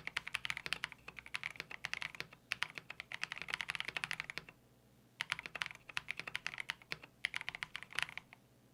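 Fast typing on a KBD67 Lite R2 65% custom mechanical keyboard built with NovelKeys Cream linear switches: a rapid patter of keystrokes in bursts with two short pauses, stopping near the end.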